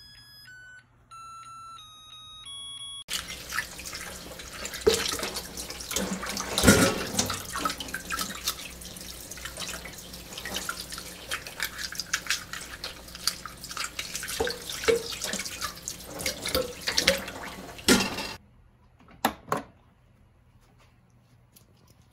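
An IH rice cooker (Zojirushi NP-VE18) playing its short electronic start melody of stepped beeps. Then, for about fifteen seconds, water splashes and runs in a stainless-steel sink as a boiled egg is peeled in a pot of water, ending in two brief clicks.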